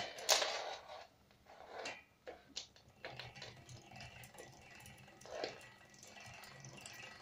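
Bicycle rear wheel driven by hand through a home-built step-up gear set and cassette: a sharp click near the start and a few more, then a faint steady whir with light clicking from the gears and freewheel as the wheel spins fast.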